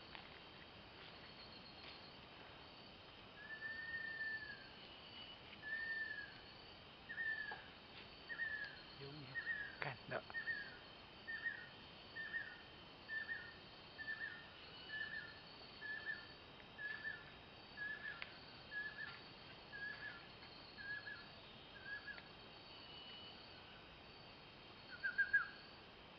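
Banded kingfisher's whistled song: one long drawn whistle, then a run of about twenty shorter whistles, each dipping in pitch, evenly spaced a little under a second apart. After a pause comes one louder note, over a steady background of insects.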